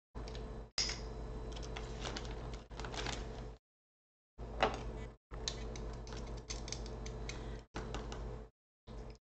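Metal garlic press being worked over a plastic bag: clicks and creaks of the press as cloves are squeezed, then scraping as the pressed garlic is scraped off. A low hum comes and goes with it, and there is one sharp click about halfway through.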